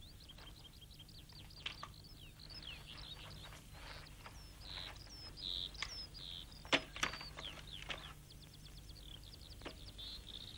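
Small birds chirping and trilling in quick, high, sliding calls, over a faint steady hum. A pair of sharp clicks a little past the middle is the loudest thing, with a few fainter clicks elsewhere.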